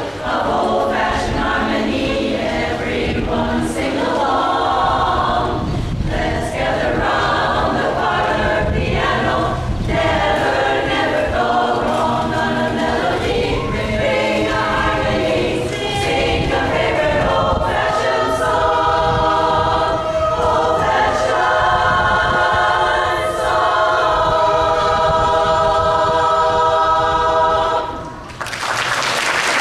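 Women's chorus singing a cappella in close harmony, closing on a long held chord that cuts off about 28 seconds in. Audience applause breaks out right after.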